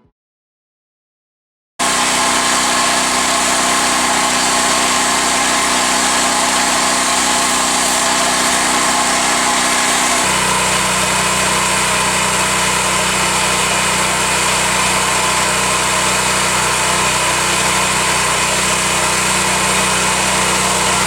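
Petrol-engined pressure washer running with a steady, loud hiss of spray, cutting in abruptly after nearly two seconds of silence; about halfway through the engine note changes and settles on a new steady pitch.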